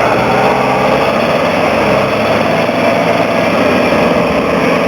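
Off-road vehicle engine running steadily and loudly during a vehicle recovery.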